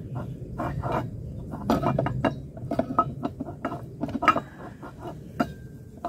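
A Briggs and Stratton mower engine's metal flywheel clinking and scraping against the crankshaft as it is turned by hand and set down so its keyway groove lines up with the groove in the crankshaft. The clicks come irregularly.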